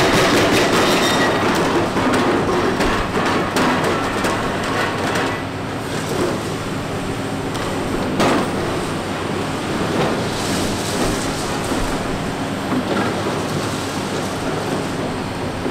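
Large Hitachi Zaxis 490 excavator breaking up concrete: the engine runs under load over clanking and scraping of concrete and steel. A rapid hammering stops about a second and a half in, and a single loud knock comes about eight seconds in.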